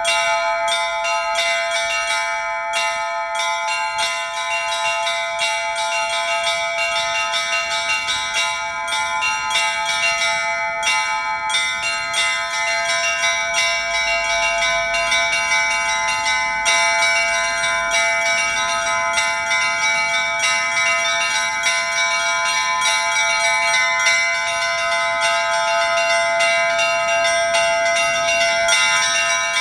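Russian Orthodox church bells ringing, several bells of different pitches struck in quick, dense succession so that their tones overlap into one continuous peal.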